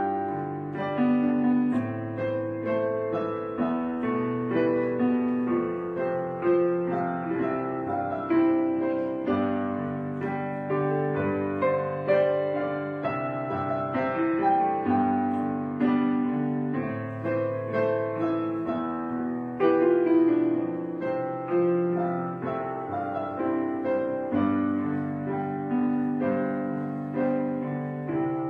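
Background piano music, a steady flow of notes with no speech.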